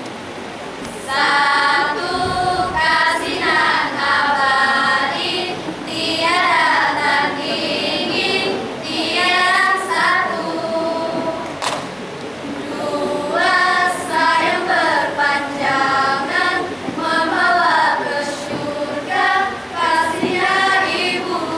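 A secondary-school choral speaking group singing and chanting in unison in Malay, in phrases of a few seconds separated by short breaths. A single sharp click sounds about halfway through.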